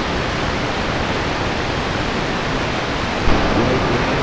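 Steady hiss of atmospheric static (QRN) from a Grundig S350DL shortwave receiver in wide AM mode, tuned to a 27 MHz CB channel with no station coming through. About three seconds in there is a click, then a faint, garbled voice starts to come up under the static.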